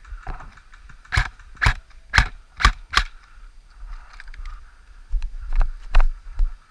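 Airsoft rifle fired in single shots, sharp snapping clicks: five about half a second apart, then two or three more near the end.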